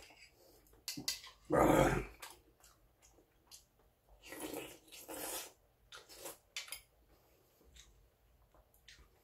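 A man eating soup: noisy slurps of broth from the bowl and the spoon, the loudest about a second and a half in and more around four to five seconds, with chewing and light clicks of spoon and chopsticks on a plastic bowl.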